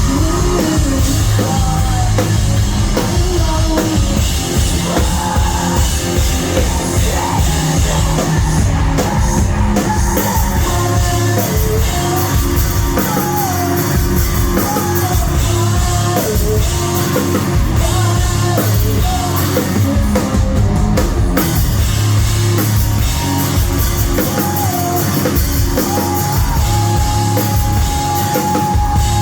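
Live rock band playing loudly with drums, guitars and a singer; near the end the singer holds one long note.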